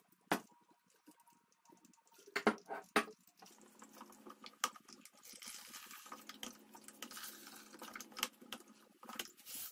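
A few light knocks as apple pulp is tipped from a glass jar into a cloth-lined strainer. Then the cloth bag of pulp is squeezed, and apple vinegar trickles and drips faintly through it into the bowl.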